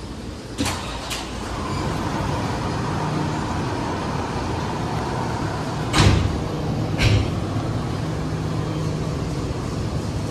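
Steady low mechanical hum that grows louder about two seconds in, with four sharp knocks: two close together near the start and two about a second apart past the middle.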